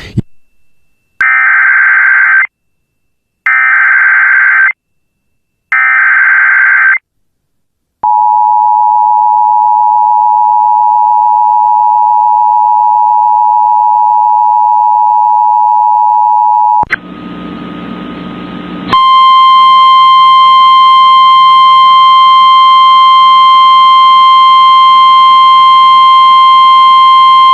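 Emergency Alert System data header sent as three identical warbling data bursts, then the two-tone EAS attention signal held for about nine seconds. After about two seconds of static, a steady 1050 Hz NOAA Weather Radio warning alarm tone sounds, slightly distorted, announcing the flash flood warning that follows.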